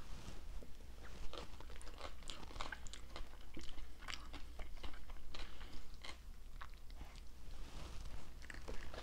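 A person biting and chewing mouthfuls of ground-beef and shredded-lettuce casserole: many short, irregular clicks, with a fresh bite taken at the start and another near the end.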